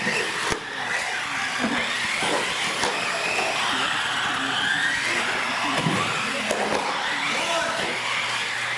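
Several radio-controlled UTV race cars running at speed, their motors whining and rising and falling in pitch as the throttle changes, with a few sharp clicks.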